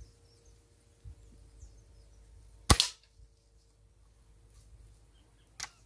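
A single shot from a Gamo Whisper 5.5 mm break-barrel air rifle: one sharp crack a little under three seconds in. A fainter click follows near the end.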